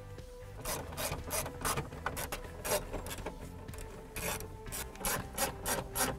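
Hand ratchet clicking as a 7mm socket on a long extension backs out the instrument cluster's mounting screws, in a steady run of about four clicks a second that starts shortly after the beginning.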